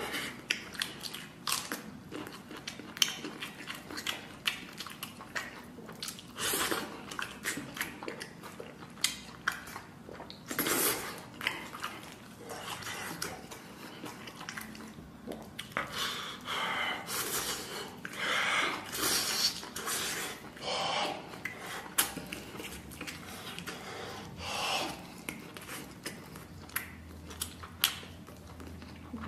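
A person eating braised pork elbow close to the microphone: chewing and biting, with many short smacks and clicks at an irregular pace.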